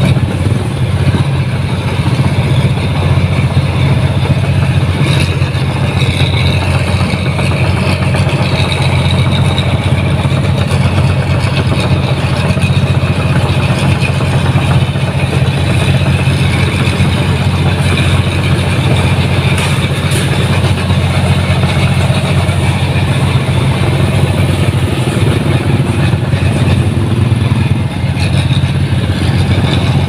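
New Holland 1545 combine harvester's diesel engine running steadily as the machine travels along the road, a loud, even low drone.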